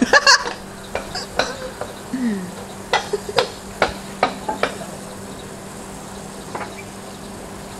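Water spraying and splattering from a garden hose as hands are washed under it, with a scatter of sharp clicks and taps, the loudest cluster in the first half second.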